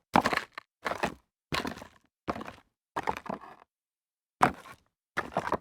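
Footsteps walking on rocks, each step a short crunch and scrape of stones underfoot. There are about seven steps at an even pace, with a pause of about a second before the last two.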